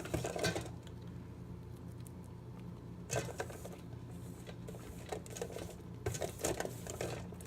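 Ice cream being scraped out of a metal mixing bowl that sits in ice water, the bowl rattling and clattering against the ice. It comes in a few short bursts of scraping, with a steady low hum underneath.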